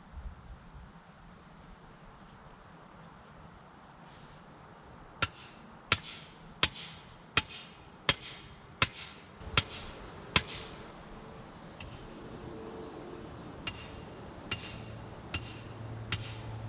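Hammer blows at a steady pace, about one every three quarters of a second: a run of eight, a pause, then five lighter blows with a short metallic ring.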